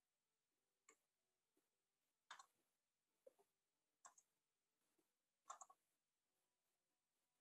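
Near silence broken by about five faint, irregularly spaced clicks of computer controls being worked.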